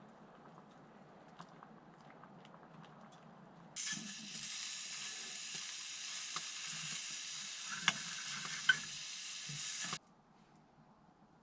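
Food sizzling as it cooks, starting abruptly about four seconds in and cutting off suddenly near the end, with two sharp clicks shortly before it stops. Before it, only faint quiet with a few small ticks.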